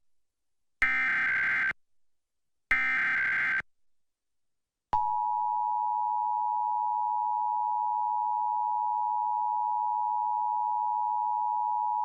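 Two roughly one-second bursts of Emergency Alert System SAME header data tones, a second apart. Then, about five seconds in, the steady two-tone EAS attention signal begins and holds. Together they open an EAS Required Monthly Test.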